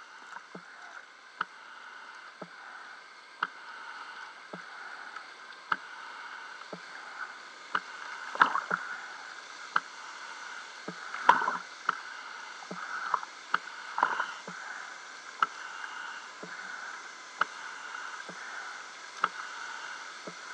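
Small waves lapping and sloshing at the water surface beside a swamped boat, with a light tick about once a second and a few louder splashes in the middle, over a steady faint whine.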